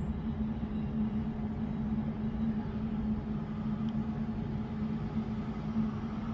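Steady low outdoor rumble with a constant hum. A tram approaches along the track in the distance, and its faint rolling noise starts to rise in the second half.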